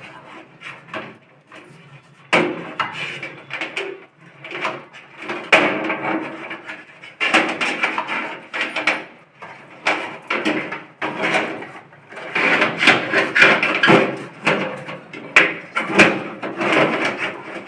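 Irregular knocks, clicks and rustling of a CCTV DVR and its cables being handled and packed into its box.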